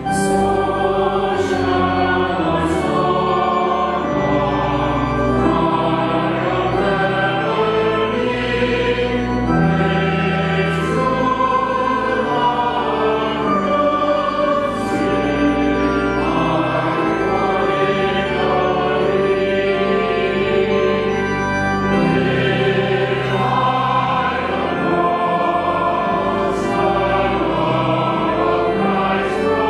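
Choir singing a sacred hymn in several parts, with long held low notes of accompaniment underneath.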